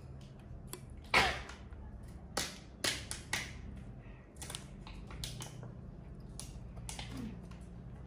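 Thin plastic gummy-candy wrapper crinkling as it is handled and opened, a run of sharp, irregular crackles and snaps, the loudest about a second in.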